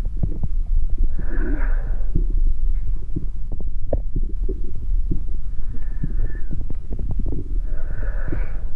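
Amplified heart sounds as a deep, throbbing rumble, thick with irregular low thumps and clicks. A rushing, hissing swell rises over it about a second and a half in and again near the end.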